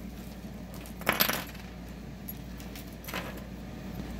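Metal costume jewelry clinking as tangled necklaces and pendants are handled on a wooden table: a short cluster of clinks about a second in, and fainter ones a little after three seconds.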